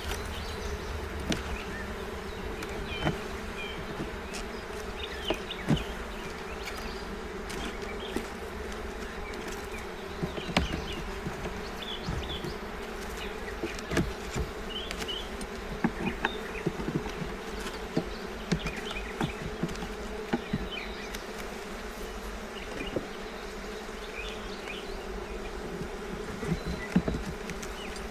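Honeybees buzzing in a steady hum around an open hive, with scattered light clicks and knocks.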